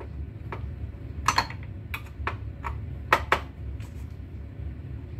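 Scattered light clicks and taps, about a dozen in five seconds, from hands and tools handling the opened receiver as its transformer removal begins. A steady low hum sits underneath.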